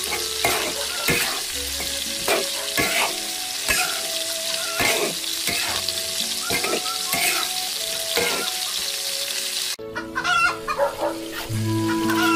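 Cured pork stir-frying in a large iron wok: a steady sizzle, with the metal spatula scraping and knocking against the wok every half second or so. Near the end the sizzle drops away and the strokes come more sparsely.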